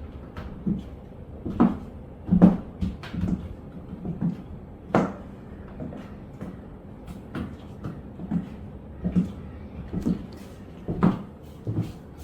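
Footsteps in chunky 6-inch platform high heels on a hard floor: a string of irregular heel knocks and thuds, roughly one every half second to second.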